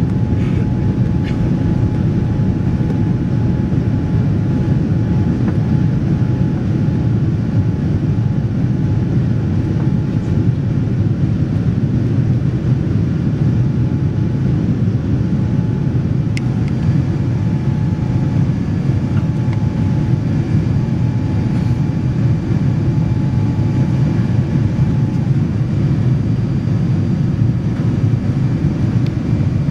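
Steady in-flight cabin noise of a Boeing 787-10: an even, low rush of airflow and its Rolls-Royce Trent 1000 engines, heard inside the cabin.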